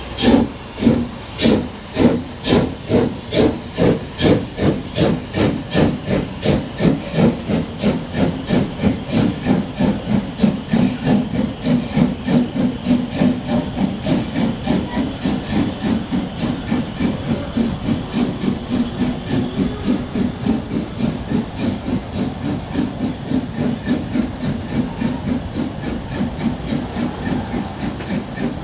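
Narrow-gauge steam tank locomotive pulling away under steam: loud, even exhaust chuffs at about two a second that speed up to about four a second and grow fainter as it moves off, with the coaches rolling past.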